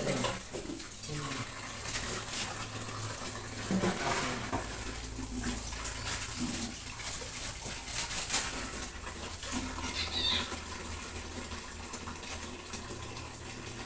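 Water running from a hose into a plastic basin, with a few short animal cries, one brief high cry about ten seconds in.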